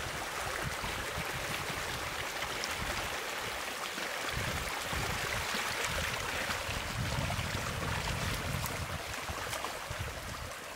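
Steady rush of flowing water, with wind gusting on the microphone in low rumbles.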